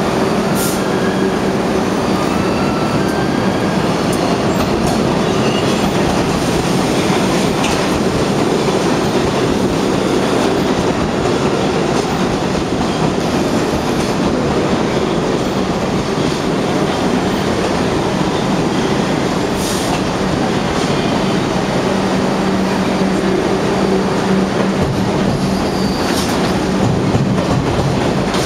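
New York City Subway train running along the platform: a loud, steady rumble of steel wheels on rail with a low, steady motor hum and a few sharp clicks.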